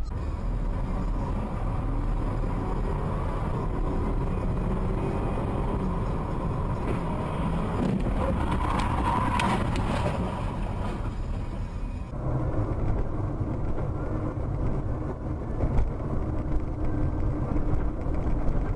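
Steady engine and road noise inside a moving car, as picked up by a dashcam. The background changes abruptly about twelve seconds in, where a different car's recording takes over.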